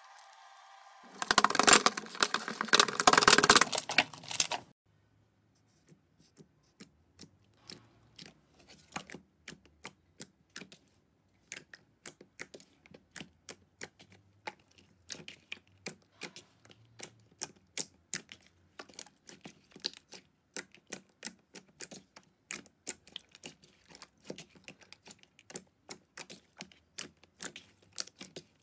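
A loud burst of dense crackling for about three seconds near the start. Then glossy slime is poked and kneaded by hand, giving sharp clicks and pops, about one or two a second.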